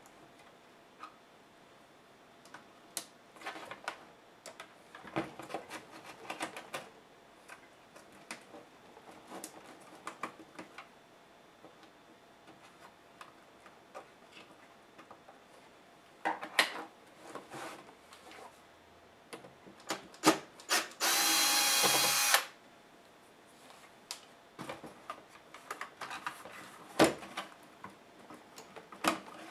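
Small clicks, taps and rattles of plastic and metal laptop parts being handled and unscrewed in a Dell Studio 1558 chassis, with a brief steady mechanical whirr about two-thirds of the way in that is the loudest sound.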